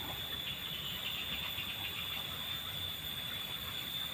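Steady outdoor background noise with a continuous high-pitched whine and faint rapid ticking in the first couple of seconds.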